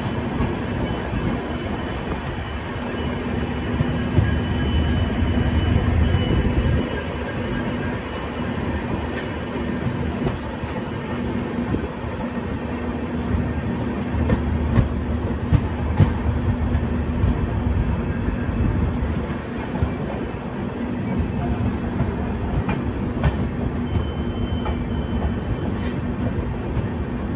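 Express train rolling along the rails, a steady rumble and hum with scattered wheel clicks.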